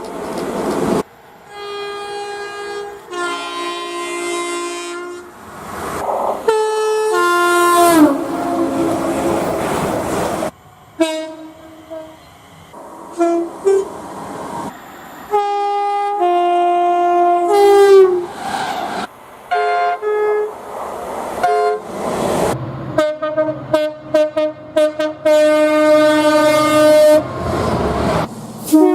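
A string of different train air horns, one after another with abrupt changes between them: chords of several notes sounding long and short blasts, one blast dropping in pitch as it ends and a run of short blasts near the end, with passing-train rumble in between.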